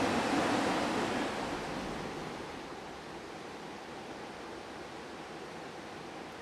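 Creek water rushing over rocks, a steady hiss that fades somewhat over the first three seconds and then holds.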